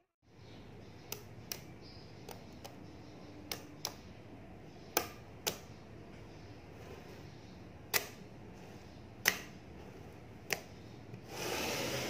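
Small magnetic balls clicking sharply against each other as slabs of them are handled and snapped into place: about a dozen separate clicks at irregular intervals, then a second-long rushing clatter near the end.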